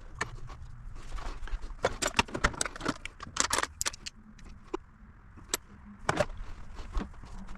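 Metal hand tools clinking and rattling in a quick series of sharp clicks, thickest in the first half, then a few scattered clinks.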